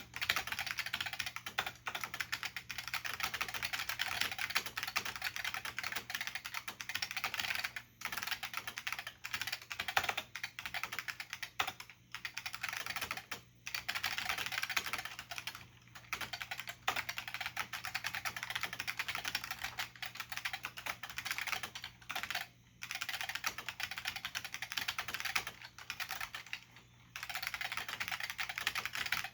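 Fast continuous typing on an IBM P70 keyboard with Alps SKCP-family plate-spring switches and thin dye-sublimated keycaps, a dense run of keystroke clicks broken by short pauses every few seconds.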